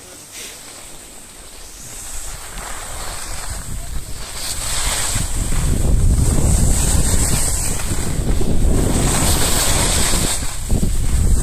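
Wind buffeting the microphone and skis hissing and scraping over packed snow, growing louder about two seconds in as the skier picks up speed. The scraping swells and fades with each turn.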